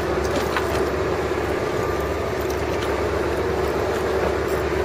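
Steady engine drone of the fishing boat, running at an even pitch, with a few faint clicks over it.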